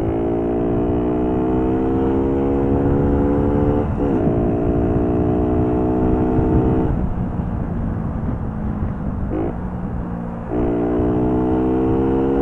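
Four-stroke moped engine under hard acceleration, its note climbing slowly in each gear, with quick gear changes about four seconds in and again near ten and a half seconds. Between about seven and ten seconds the throttle eases and the engine note falls back and weakens before pulling again.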